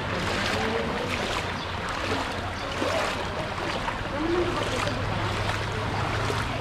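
Feet wading through shin-deep floodwater, water sloshing and splashing with each step, over a low steady hum.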